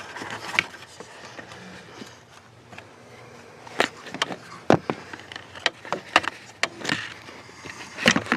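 Irregular clicks, knocks and rubbing as hands work at a rubber access cover and trim under a pickup truck's dashboard.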